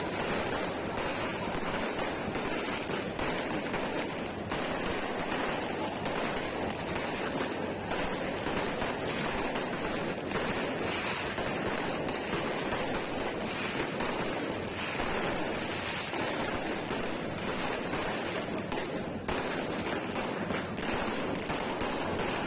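Many fireworks going off at once, their bangs and crackles running together into a steady, dense crackling rush.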